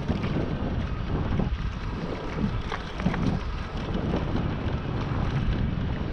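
Wind buffeting the microphone of a camera on a moving bicycle: a steady low rumble that swells and dips in irregular gusts.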